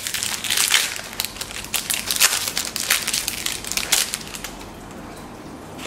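Foil wrapper of a Match Attax trading-card pack crinkling and crackling as it is pulled open by hand. The crinkling dies down about four seconds in.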